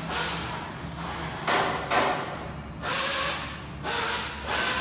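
Factory assembly-floor noise: repeated short bursts of compressed-air hiss from pneumatic tools, irregularly spaced, over a steady low machine hum.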